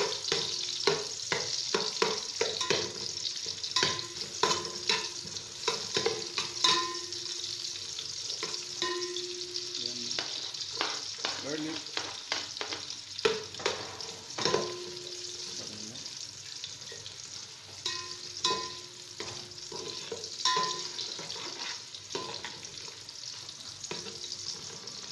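Sliced onions sizzling in hot oil in an aluminium pot, with a metal spoon repeatedly scraping and clinking against the pot, each knock setting the pot ringing briefly. The clinks come thickly at first, thin out for a few seconds in the middle, then pick up again.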